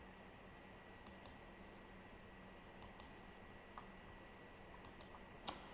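Near silence: a low steady hum, with a few faint computer-mouse clicks as a font is picked from a drop-down list. One click near the end is a little louder than the rest.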